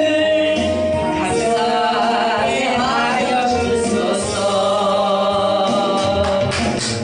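Praise hymn sung in Korean over instrumental accompaniment, the voices holding long notes. Light percussive taps come in near the end.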